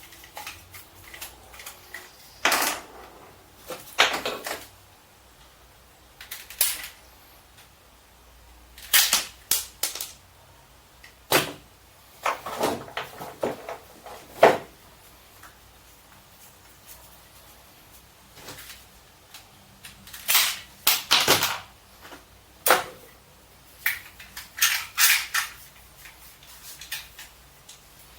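Irregular knocks, clicks and clatters, some in quick clusters, with short quiet gaps between: hard objects being handled and set down during workshop work.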